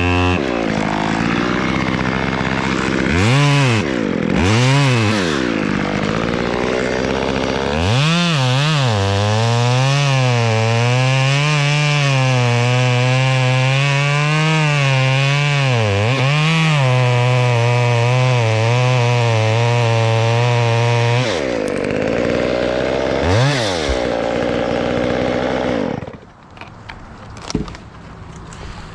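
Chainsaw revved up twice, then held at high revs for about thirteen seconds with its pitch wavering as it cuts wood. It then drops back, revs once more and falls off near the end.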